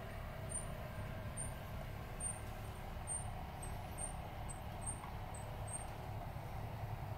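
Model chairlift running, with a steady low hum from its drive. Faint high-pitched squeaks come roughly twice a second as the cable passes over the wheels, and they stop about six seconds in.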